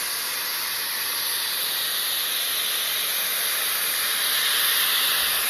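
Shark FlexFusion hair dryer running with its wet/dry styling brush attachment: a steady hiss of rushing air.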